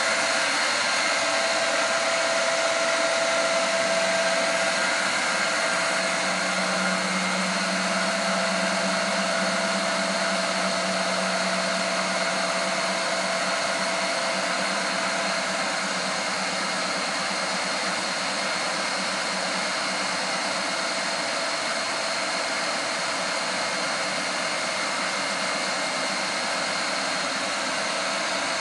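Hurco Hawk 5 CNC knee mill running its warm-up cycle: the spindle running with a steady whine over a hiss, the table traversing on its axis drives. A lower hum comes in a few seconds in and fades out about halfway through.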